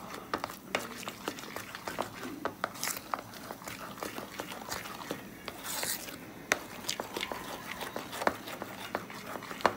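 Metal spoon stirring thick apam batter in a ceramic bowl: irregular clinks and scrapes against the bowl, a few a second, with a sharper clink near the end.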